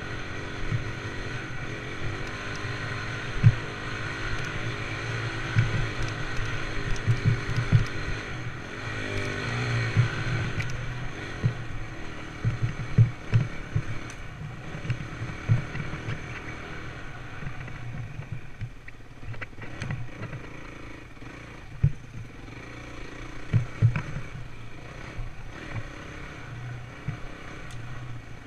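Dirt bike engine running on a forest trail, its revs rising and falling with the throttle, with frequent sharp thumps as the bike rides over bumps. The engine is louder in the first half and eases off somewhat in the second.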